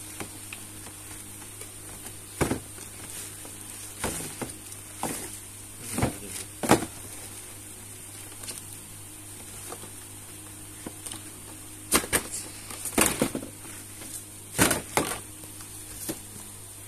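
Hard plastic storage baskets knocking and scraping against each other as they are handled, with the crinkle of a plastic wrapping bag, in irregular sharp clatters about a dozen times over a steady low hum.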